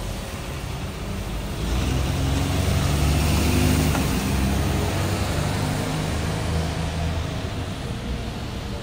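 A double-decker bus's engine running as it moves past, swelling about two seconds in and easing off near the end, with the hiss of tyres on wet road.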